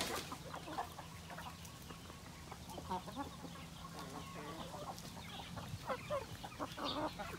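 A flock of native chickens clucking softly here and there while they peck feed off the ground.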